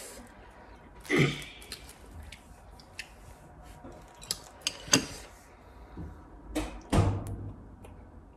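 Chopsticks and tableware tapping and clinking against dishes, a scatter of small clicks with three louder knocks: about a second in, around five seconds, and just before seven seconds.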